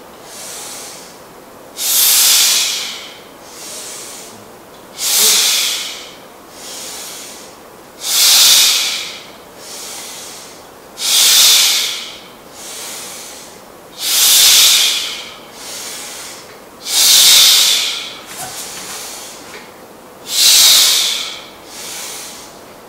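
A lifter breathing forcefully through barbell bench press reps: seven loud hissing breaths about three seconds apart, one with each press, and a quieter breath between each.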